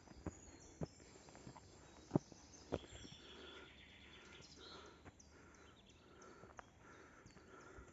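Faint footsteps on a forest trail, a few sharper knocks in the first three seconds, while a bird gives a quick run of short, high falling chirps in the second half.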